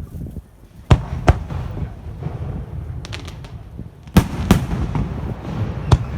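Fireworks shells bursting close by: sharp bangs about a second in, two more around four seconds in and one near the end, with a short patter of crackles in between over a continuous low rumble.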